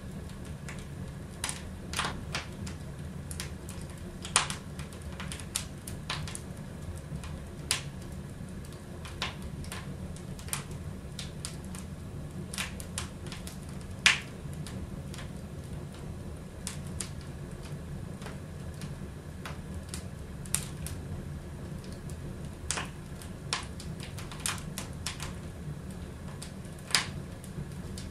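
Wood fire crackling in a fireplace: sharp, irregular pops and snaps at uneven intervals, the loudest about halfway through, over a steady low hum.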